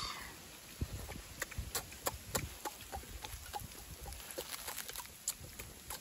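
Eating sounds: irregular small clicks and smacks of chewing and of fingers picking at food, with a brief louder rustle right at the start.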